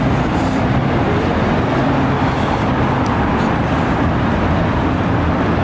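Steady road-traffic noise of a busy city street, a continuous even rumble with no single event standing out.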